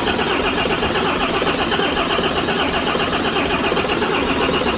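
Volvo FH13's 13-litre straight-six diesel being turned over steadily on the starter motor without firing, for a relative compression test. The test finds only 40% compression in the sixth cylinder.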